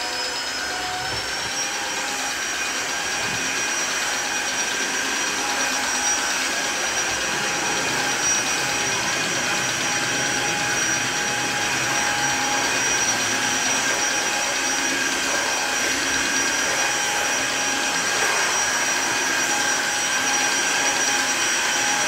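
Cordless stick vacuum running steadily: a constant motor whine with a high whistle, which steps up a little in pitch about a second in.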